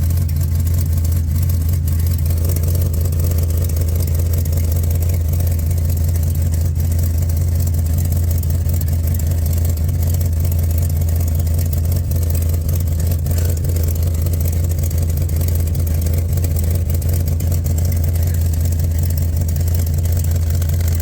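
Plymouth Cuda's engine idling with a steady low drone, its exhaust leak at the header down pipe still not fixed.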